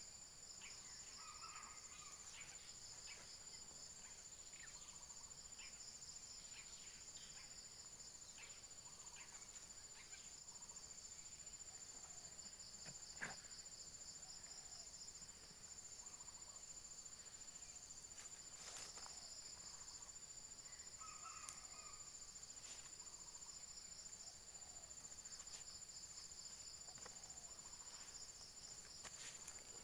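Faint insect chorus: one steady high-pitched drone with a second high trill pulsing in an even rhythm beneath it, and a few soft clicks here and there.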